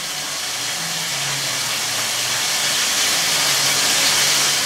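Beef köfte frying in a pan: a steady sizzle that slowly grows a little louder.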